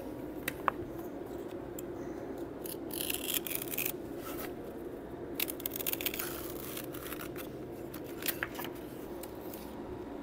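Utility knife scoring a thin wood veneer sheet along a cabinet's edge, in several runs of short scratchy strokes, over a steady low hum.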